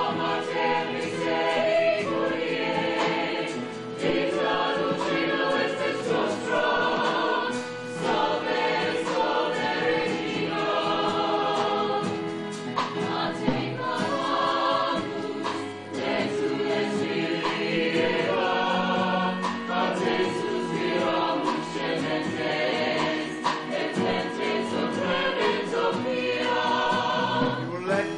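Stage ensemble singing together as a choir over instrumental accompaniment.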